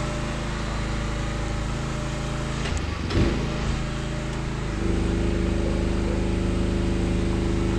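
Aerial lift's engine running steadily, with a brief rattle about three seconds in; about five seconds in the engine speeds up and gets louder as the hydraulic boom is swung.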